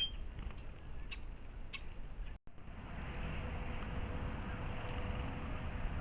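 A few short, high chips from small songbirds over a steady low background rumble. About two and a half seconds in the sound cuts out for an instant, then the background returns steadier and a little louder, with a faint steady hum.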